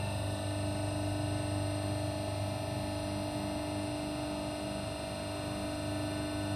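Steady electric hum and buzz of a hydraulic press's motor-driven pump running with the ram stopped.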